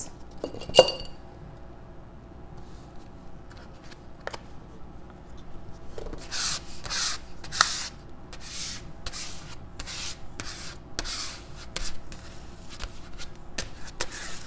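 Plastic card scraping acrylic paint across paper in short, scratchy strokes, about two a second, from about six seconds in. A sharp knock about a second in is the loudest sound.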